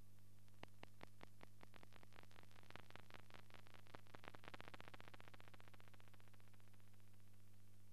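Faint steady mains hum with a run of evenly spaced ticks, about five a second at first, quickening and growing louder toward the middle and then fading away: noise on the blank soundtrack of a silent film.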